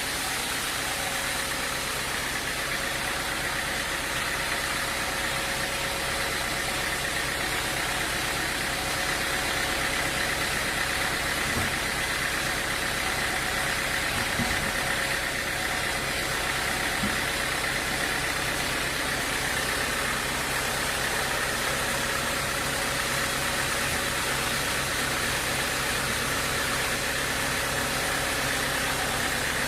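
Sawmill machinery running steadily with a constant engine-like hum, and a few faint low knocks around the middle.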